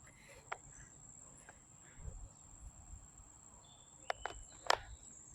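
Crickets trilling steadily, a faint high-pitched drone, with a few light clicks and a brief low rumble about two seconds in.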